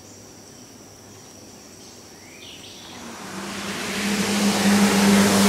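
Quiet riverside air with faint insects, then from about three seconds in a jet ski approaching: a steady engine drone with the rush of its spray, growing louder to the end.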